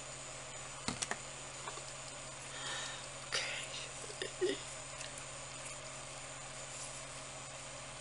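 A few light clicks and short rustles of small objects being handled, with a brief squeak about four seconds in, over a steady electrical hum.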